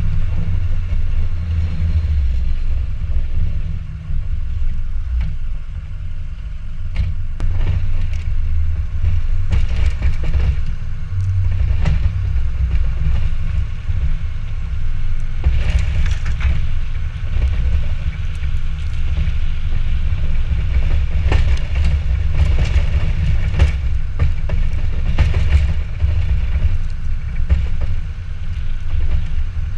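2006 Ford F250's 6.0 Powerstroke V8 turbodiesel running steadily as a low rumble, heard from the cab while plowing snow, with scattered sharp knocks and clatter.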